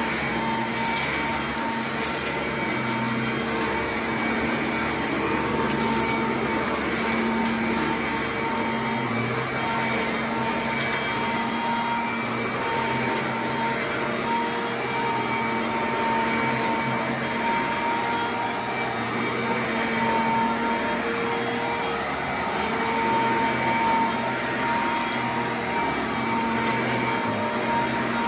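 Sanitaire commercial upright vacuum running steadily as it is pushed over carpet, a continuous motor hum and airflow rush. Brief crunching crackles of debris being sucked up come mostly in the first several seconds.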